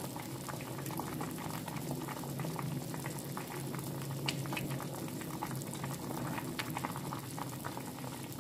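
Seafood soft tofu stew boiling hard in a stainless steel pot on a gas stove, bubbling steadily with many small popping bursts. A steady low hum runs underneath.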